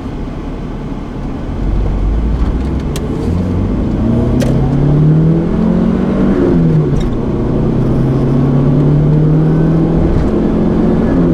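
Car engine pulling away and accelerating over road rumble: its pitch climbs, falls at a gear change midway, climbs again and falls once more near the end.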